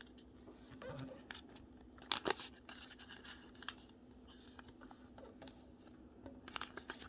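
Origami paper being folded and creased by hand: scattered rustles and crinkles, with a couple of sharp crisp snaps about two seconds in. A faint steady low hum runs underneath.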